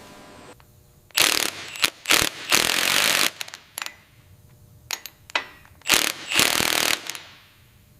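Workshop power tools working on bed frames: about five short bursts of harsh, hissing, rattling noise, some near a second long, with sharp clicks between them.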